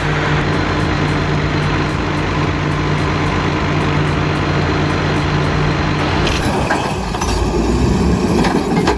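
Heavy machine engine running steadily at a constant pitch. About six seconds in the sound changes to clanking and rattling over a low engine rumble.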